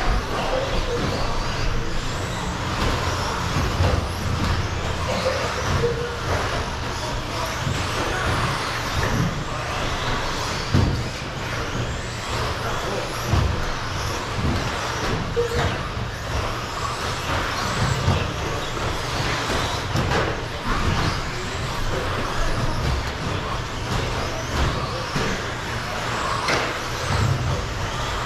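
Radio-controlled stadium trucks racing on a carpet track: the steady noise of their motors and tyres, with scattered sharp knocks from the trucks hitting the track or its borders.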